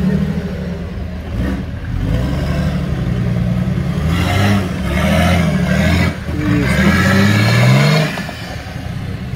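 Off-road 4x4's engine revving hard in repeated surges, its pitch climbing several times and dropping back.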